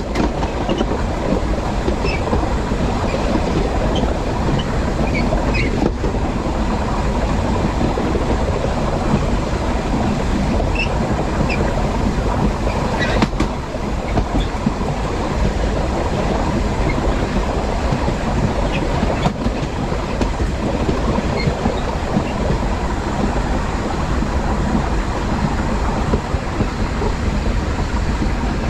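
Diesel passenger train running along the track, heard from the driver's cab: a steady rumble of wheels and running gear, with a few faint clicks over the rail joints.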